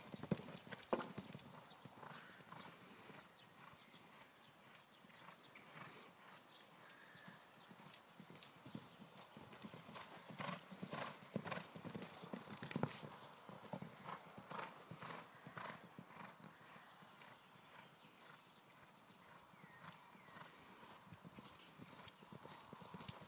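Horse cantering on a sand arena: a run of soft hoofbeat thuds that grow louder and fade as the horse passes closer and farther away, loudest about halfway through.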